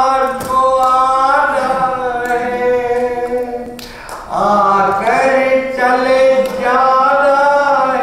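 A man singing unaccompanied in long, drawn-out notes: two phrases with a short break about four seconds in.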